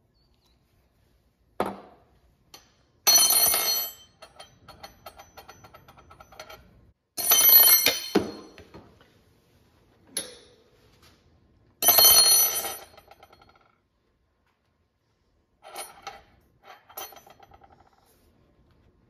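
Metal tool-belt hardware, a steel hammer loop with its mounting tabs, clinking against a hard countertop several times. Each knock rings briefly with a bright metallic tone; the loudest come about three, seven and twelve seconds in.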